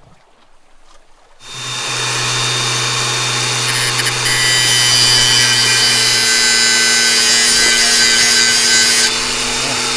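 Makita 18 V cordless angle grinder starting up about a second and a half in, then grinding down a long metal fitting nut held against its disc from about four seconds in, a loud hiss over the motor's steady whine. The grinding stops about a second before the end while the motor keeps running. The nut is being shortened because it bottomed out and kept the air-line fitting of the front diff lock from tightening.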